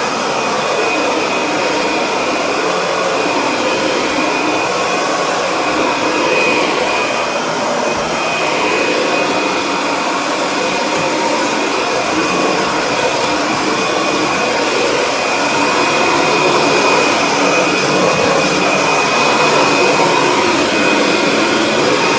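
Kirby Sentria upright vacuum cleaner running steadily while vacuuming, its motor noise topped by a steady high whine.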